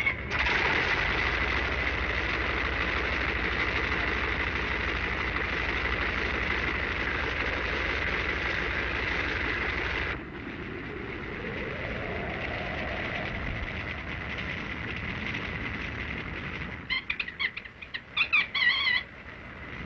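Sound effects on an old film soundtrack: a steady loud drone with a high whistle-like tone and a low pulsing rumble that cuts off suddenly about ten seconds in. A quieter stretch follows with a tone that rises and falls, and near the end a few short warbling high whistles.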